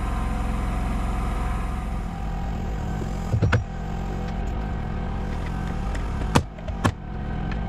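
Pneumatic coil nailer firing twice, two sharp shots about half a second apart near the end, nailing a tongue-and-groove roof board that is being levered tight with a chisel. A few knocks come about midway, over a steady machine hum.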